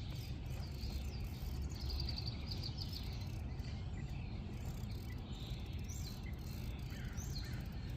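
Birds chirping, with a quick trill about two seconds in and a couple of short sliding calls near the end, over a steady low rumble.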